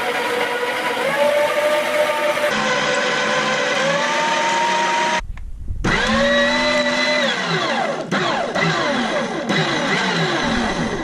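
Electric meat grinder motor whirring as it crushes food, its pitch dipping under load. It stops briefly about five seconds in, spins back up, sags in pitch several times as it bogs down, and cuts off at the end.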